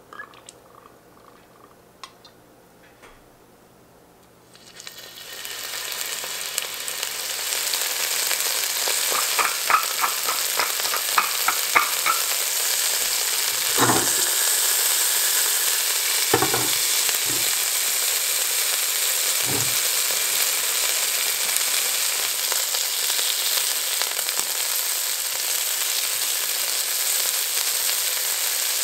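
Beef cubes searing in hot oil in an enameled cast-iron Dutch oven: a loud, steady sizzle starts about five seconds in. A run of quick clicks and a few sharp knocks from the pot and tongs sound over it.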